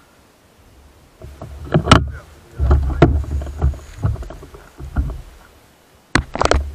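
Gusts of wind buffeting the camera's microphone in uneven bursts of low rumble, with a few sharp knocks and clicks of handling noise.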